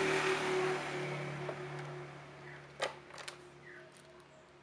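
Steady background hiss and low hum, fading over the first couple of seconds, then two light clicks about a second apart from small parts or tools being handled on a workbench.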